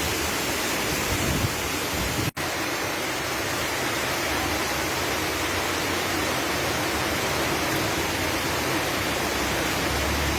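Steady rushing of floodwater and heavy rain, an even noise throughout, with a brief cut-out about two seconds in.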